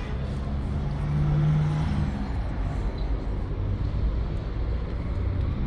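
Low rumble of road traffic, with a motor vehicle's engine hum swelling and loudest between about one and two seconds in.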